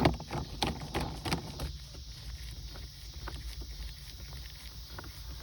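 Plastic shifter-console trim being handled and slid back into place: a quick cluster of clicks and knocks in the first second and a half, then a few faint ticks over a steady low rumble.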